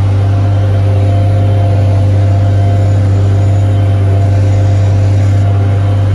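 Tractor engine under load driving a Gehl pull-type forage harvester that is chopping standing corn, heard from inside the tractor cab: a loud, steady drone with a constant low hum.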